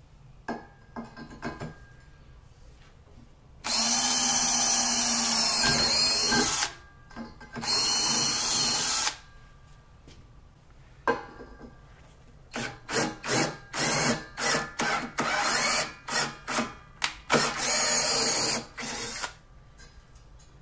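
Cordless drill boring into steel C-channel: two long runs of a few seconds each, then a string of short on-off trigger pulses, and one more long run near the end.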